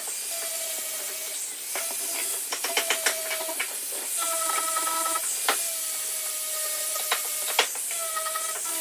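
Workshop noise: wooden pieces knocked and shifted on a workbench, with several sharp clicks, over a steady hiss and a machine tone that starts and stops every second or so.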